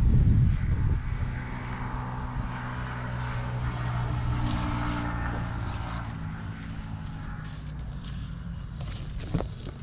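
Wind buffeting the microphone at first, then a steady engine hum that swells a little around the middle and slowly fades, with a single short knock near the end.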